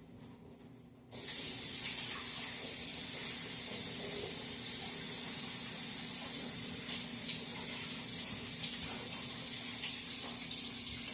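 Kitchen faucet turned on about a second in, water running steadily into the sink while hands are washed under it.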